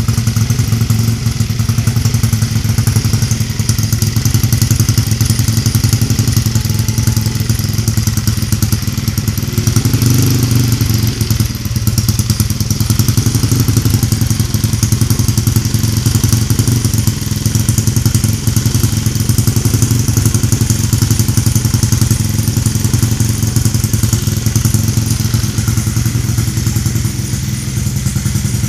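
Motorcycle engine running steadily near idle, with rapid even firing pulses and a brief slight swell about ten seconds in. It is the engine just refitted with a new crankshaft.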